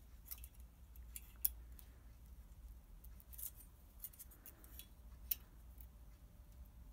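Light metallic clicks and scrapes of a steel feeler gauge set, several separate ticks as blades are fanned out and slid between the rocker and valve stem to check the exhaust valve clearance on a Citroën 2CV engine.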